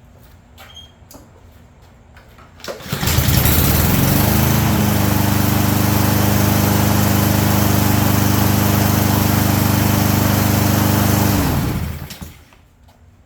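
Husqvarna push mower's single-cylinder engine pull-started, catching about three seconds in, revving up and running steadily, then dying away near the end. It now runs because the shortened safety cable pulls the bail's safety far enough back, curing the no-spark fault.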